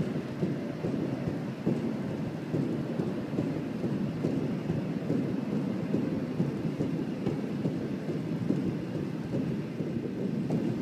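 Several juggling balls rolling around the inside wall of a large clear cone, making a continuous, dense rumble.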